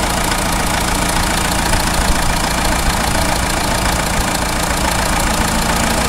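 Renault Scénic's F8T diesel engine idling steadily with a fast, even clatter. It runs without the 'fuf fuf' shudder, the sensor on its injection pump having just been replaced.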